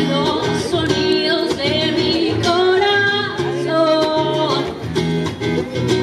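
Live song: a woman singing into a microphone over an acoustic guitar.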